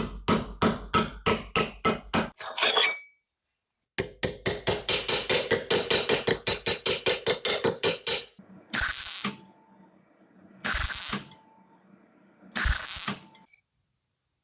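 Hand tools working metal: a fast, even run of hammer blows, a short pause, then a quicker run of blows. Near the end come three short noisy bursts about two seconds apart.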